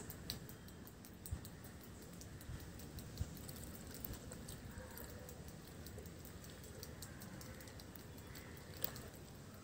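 Hand mixing gram-flour (besan) batter for boondi in a steel bowl: faint squishing, with a few light clicks of fingers knocking against the metal.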